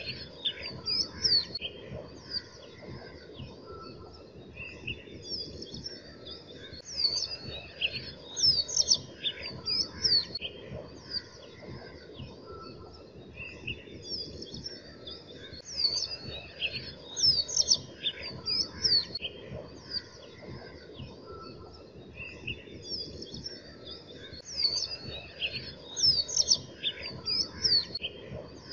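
Birds chirping in bursts of short, high twittering phrases over a steady low rushing noise, the same run of phrases coming round again every eight or nine seconds, like a looped birdsong ambience track.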